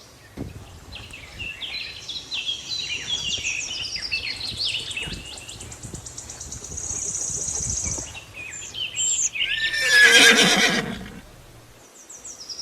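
High chirps and a steady high trill for several seconds, then a horse whinnying once, loud and falling in pitch, about ten seconds in.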